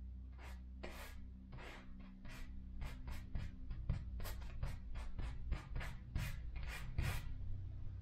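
Quick, scratchy strokes of a paintbrush on canvas, about three a second, stopping shortly before the end.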